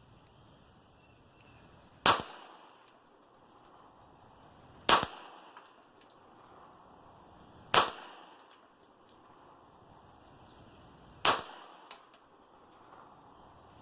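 Four single gunshots from a MechTech CCU carbine chambered in .40 S&W, spaced about three seconds apart, each with a brief ring-off and faint clinks after it.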